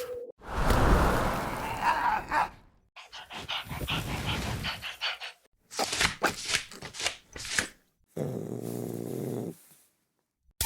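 Dog growling and barking in several short, separate bursts with brief silences between them.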